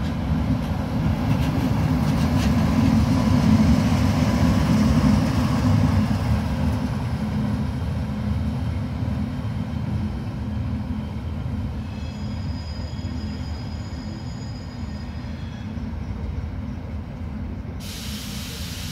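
A DB class 114 electric locomotive and its double-deck coaches pull away, with a low rumble of wheels on the track. The rumble is loudest in the first few seconds and fades steadily as the train draws off, with faint high squeals in the latter half and a hiss coming in just before the end.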